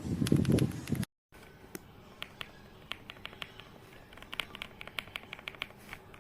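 Typing on a mechanical keyboard fitted with Gateron linear switches. A fast run of loud, deep keystrokes lasts about a second and cuts off abruptly. After a short gap come lighter, irregular key clicks that get busier near the end.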